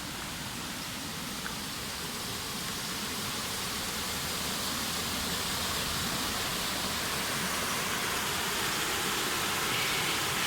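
Rain-swollen creek water rushing steadily, growing gradually louder.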